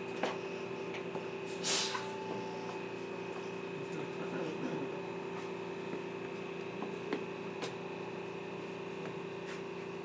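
Inside a passenger car of a JR Kyushu BEC819 series battery electric train: a steady electrical hum from the onboard equipment, with scattered light clicks and a short hiss about two seconds in.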